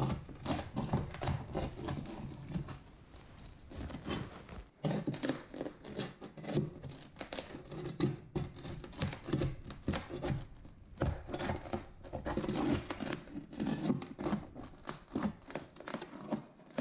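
Old floor tile and cement backer board being pried up with a pry bar: irregular cracking, scraping and clattering knocks, with a short lull about three to four seconds in.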